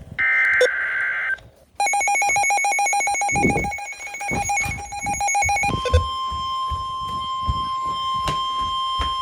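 NOAA Weather Radio alert tones. The last burst of the SAME header's data tones ends about a second in. A rapidly pulsing electronic alarm beep follows for about four seconds. Then, about six seconds in, the steady 1050 Hz weather radio warning alarm tone begins, announcing a severe thunderstorm warning.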